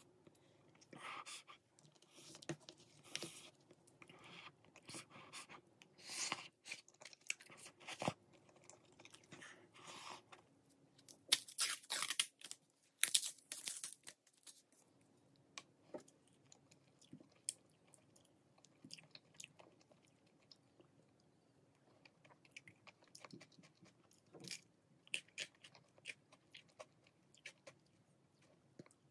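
Close-up eating sounds: chewing and small utensil taps over the first third. About 11 seconds in comes the loudest part, a few seconds of the paper sleeve being torn and peeled off an ice cream cone. After it, softer crunchy bites and chewing of the cone.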